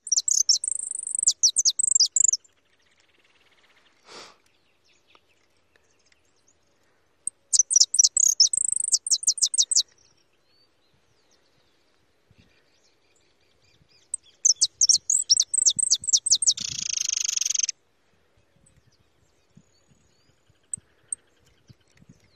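Young caged jilguero (finch) singing: three bursts of rapid, high-pitched trilled notes about six seconds apart, the last ending in a harsh buzz.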